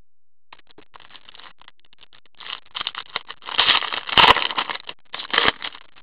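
Foil wrapper of an O-Pee-Chee Platinum hockey card pack crinkling as it is torn open and the cards are pulled out. It starts with a few faint ticks, then a dense, irregular crackle builds about halfway in, with a sharp click about four seconds in.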